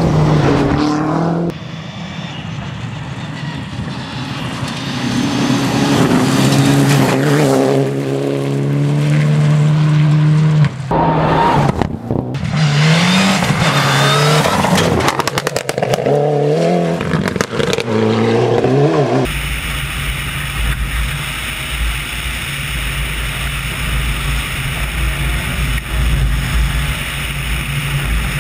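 Rally car engines on a gravel stage, revving hard and rising and falling in pitch through gear changes, in several cut-together passes with tyre and gravel noise. About two-thirds of the way in this gives way to a steady rushing noise with a low rumble, like wind on the microphone.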